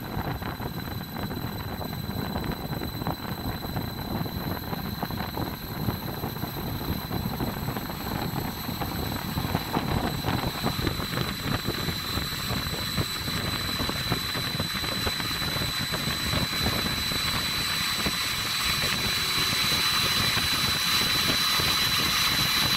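Baldor 5 hp electric motor and its direct-drive blower wheel spinning up on a VFD, the air rush growing steadily louder as it ramps up, with a steady high-pitched whine over it. It runs smoothly with freshly replaced bearings and sounds perfectly normal, with no bearing noise.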